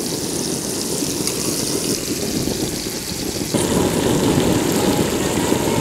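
Marinated barracuda pieces sizzling as they fry in hot oil, a steady crackly hiss; the sound shifts a little about three and a half seconds in.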